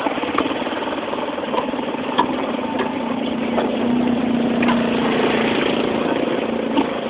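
Motorcycle engine of a Philippine tricycle running steadily while riding, with a low hum, road and wind noise, and scattered light clicks and rattles.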